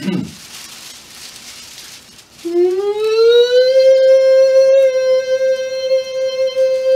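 A man imitating a siren with his voice in head voice: a pitched wail starts about two and a half seconds in, rises for about a second and a half, then holds one steady high note.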